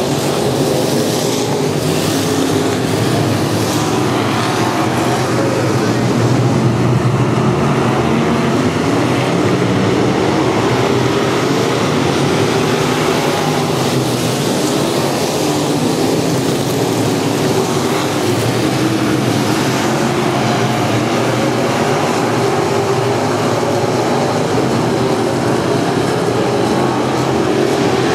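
A pack of dirt-track street stock race cars racing, their engines making a loud, continuous din that swells and wavers in pitch as cars pass and go through the turns.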